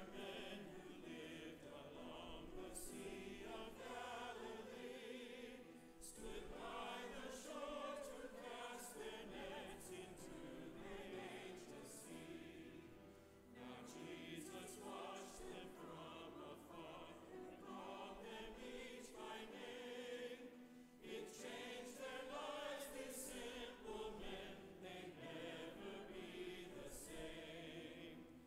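A congregation singing a hymn together, many voices in slow phrases, with brief breaks between lines.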